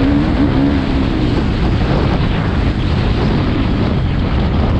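Heavy wind noise on the microphone over a motocross bike's engine. The engine's pitch stands out for about the first second, then the wind noise covers it.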